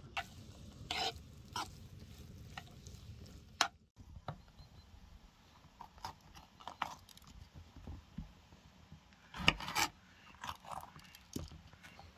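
A metal spoon scraping and tapping in a frying pan of grated carrot and onion, then a knife cutting peppers on a wooden chopping board in irregular knocks, the loudest pair about two-thirds of the way through.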